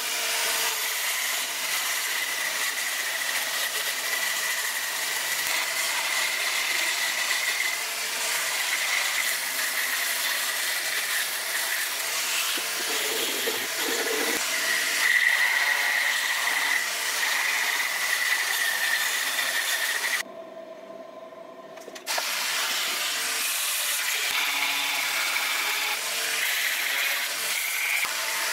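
Dremel rotary tool with a flex-shaft handpiece running at high speed, a small burr grinding into wood: a steady high whine over a hiss of cutting. The tool stops for about two seconds some twenty seconds in, then starts again.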